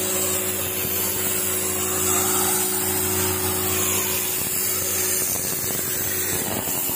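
High-pressure water washer running steadily: a machine hum with the hiss of the water jet. The jet is blasting barnacles and growth off a fishing boat's hull. One of the hum's tones drops out about five seconds in.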